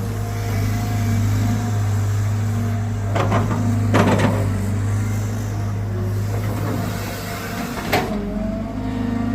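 Caterpillar 320GC excavator's diesel engine running steadily, with two brief harsh noises about three and four seconds in and a single sharp knock near the end.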